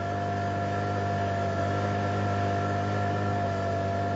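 Motorboat engine running steadily: an even hum with a steady higher tone riding over it.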